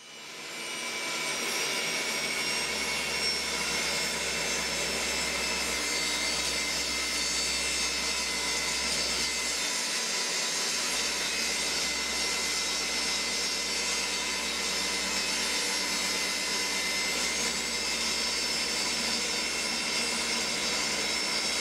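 Benchtop table saw's motor spinning up over the first second, then running steadily at full speed while its blade trims the edge of a wooden drawer.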